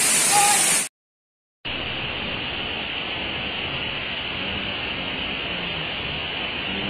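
Waterfall pouring down a rock face: a steady rushing of falling water that breaks off about a second in for a brief silence, then carries on steadily, quieter and more muffled.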